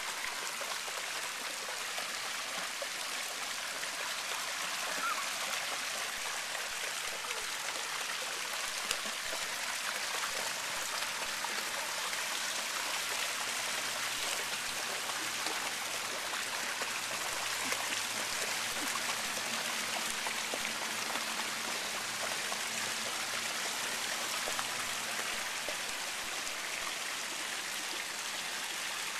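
Steady rush of water from a spout pouring into a shallow fountain pool, with splashing from a dog wading through the water.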